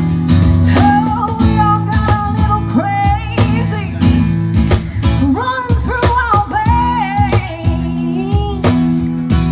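Live country band playing a song: a singer's voice over guitar, bass and a steady drum beat.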